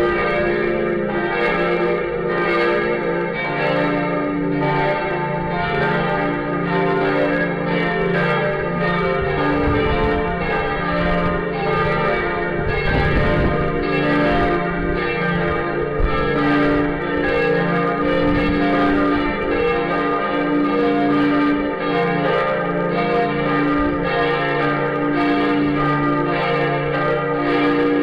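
The Lindenkirche's church bells ringing together in a full peal, their strokes overlapping in a steady, continuous clangour of several pitches.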